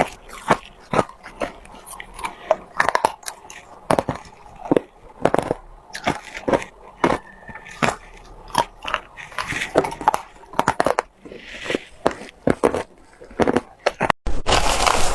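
Ice being bitten and chewed close to the microphone, with sharp crunches coming irregularly about twice a second. About 14 seconds in there is a brief gap, after which the crunching becomes a dense, continuous crackle.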